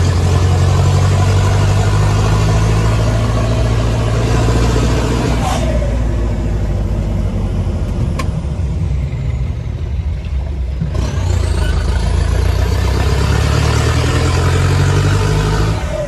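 Mahindra Commander jeep's engine running under way, a steady low drone. Near eleven seconds it dips briefly, then picks up again.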